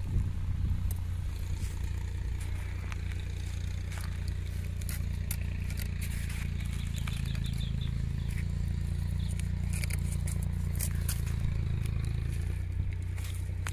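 Koi fish (climbing perch) being cut and scraped with a blade: scattered scrapes and sharp clicks over a steady low rumble.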